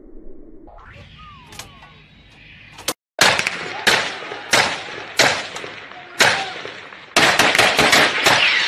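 Gunshots fired in quick succession: sharp cracks with echoing tails, about one or two a second at first, crowding into rapid, overlapping shots near the end. They start about three seconds in, after a quieter stretch of outdoor noise with a few faint whistle-like glides.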